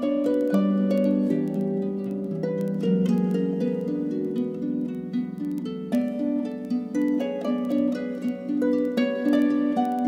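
Background music of plucked-string notes in a continuous flowing run, each note struck and left to ring.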